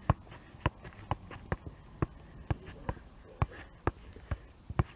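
Football being juggled off the feet: a steady run of short kicks, about two a second, around eleven touches in all.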